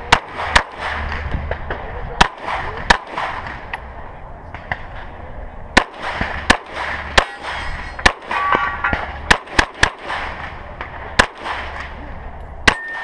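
About a dozen 9mm pistol shots fired at an irregular pace, some in quick pairs and some a second or more apart, as a shooter works through a USPSA course of fire.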